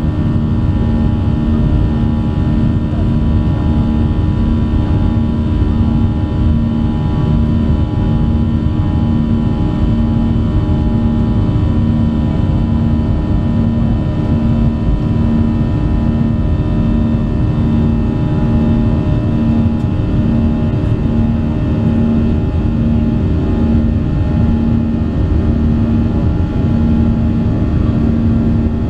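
Boeing 737-800's CFM56-7B turbofan engines heard inside the cabin during the climb-out after takeoff: a loud, steady rush with a low hum that pulses in and out about once a second.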